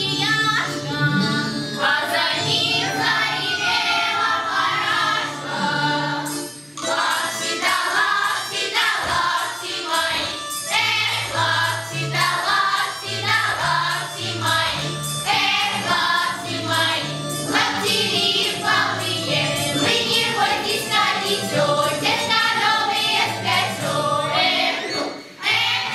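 Girls' folk vocal ensemble singing a Russian folk song in chorus over an instrumental backing track with a stepping bass line; a steady beat comes in about seven seconds in, and the music stops just at the end.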